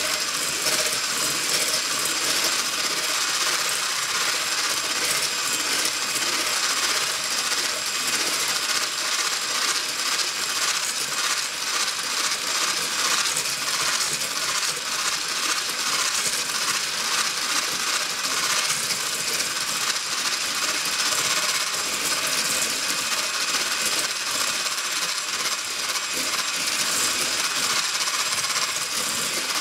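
Continuous whisking in a mixing bowl: a rapid, unbroken clinking of the whisk against the bowl.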